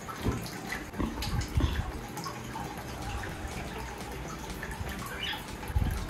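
Steady running and trickling water from a pond pump, with a few dull knocks as a clamp lamp is handled and fixed to the wire mesh.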